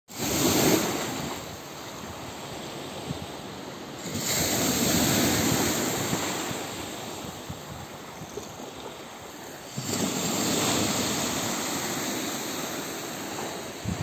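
Sea surf washing in at a river mouth: a steady rush of water that swells three times, just after the start, about four seconds in and about ten seconds in, each swell easing off slowly.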